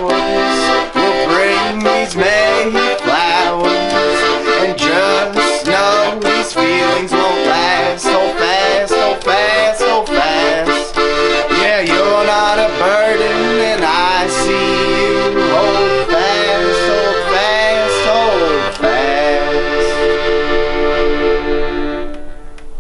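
Instrumental folk-punk music without singing: a sustained lead melody over regular strummed beats, breaking off near the end.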